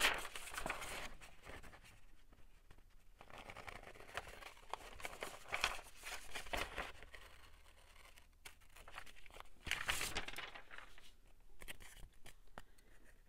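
Paper being handled: short bursts of rustling and crinkling with small clicks and taps between, loudest right at the start and again about ten seconds in.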